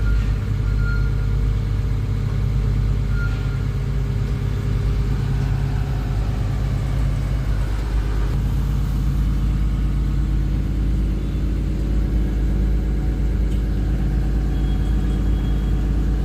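Diesel engine of a Kato HD1023-LC excavator running steadily; its note shifts slightly about eight seconds in.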